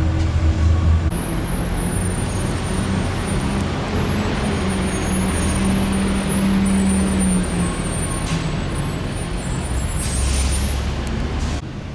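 Road traffic passing close by: a steady engine rumble and tyre noise from motor vehicles, with a short hiss about ten seconds in. The sound drops off abruptly just before the end.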